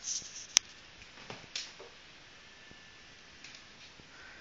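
A single sharp click about half a second in, with soft rustling and scraping from handling before and after it.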